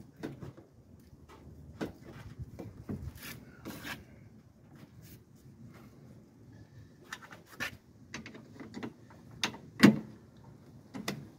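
Plastic aftermarket headlight assembly rubbing and knocking against its mounting slots as it is worked into place by hand: a string of scattered clicks and scrapes, with one sharp knock near the end. The assembly will not seat all the way and does not line up with its slots.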